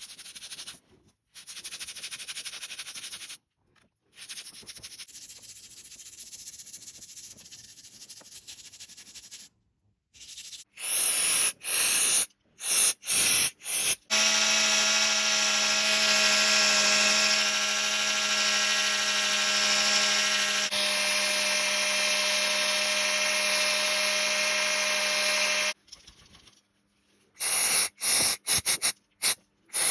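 Electric drill spinning a wire brush against a grimy motorcycle engine casing to strip stubborn oil grime: for about twelve seconds in the middle a steady motor whine with a harsh hiss of bristles on metal. Before and after it come short, loud hissing bursts, and in the first seconds a quieter scrubbing noise.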